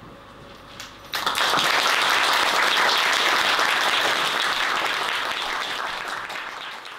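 Audience applauding, breaking out suddenly about a second in and tapering off near the end.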